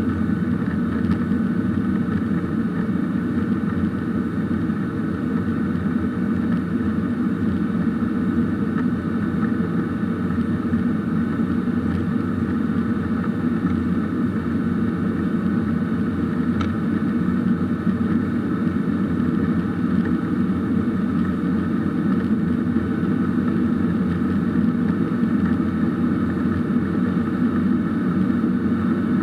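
Steady cabin noise inside a Boeing 737-800, its CFM56 engines giving a constant rumble with a thin steady whine above it, unchanging throughout, with a couple of faint ticks.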